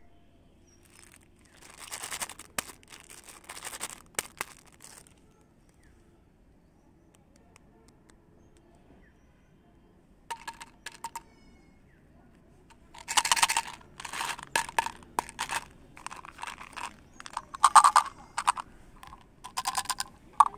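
Plastic candy wrappers being handled and unwrapped by hand: irregular bursts of crinkling and tearing, with a few sharp clicks.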